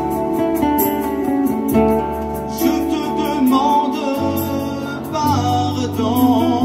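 A hymn performed live over a sound system: sustained backing chords and bass notes that change every second or so, with a voice holding wavering notes in the last second or so.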